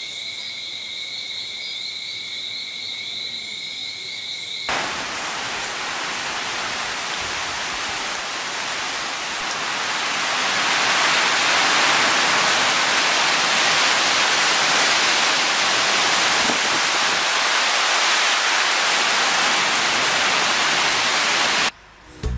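Crickets trilling steadily. After a sudden cut about five seconds in, heavy rain pours down in a steady rushing hiss that swells louder over the next few seconds.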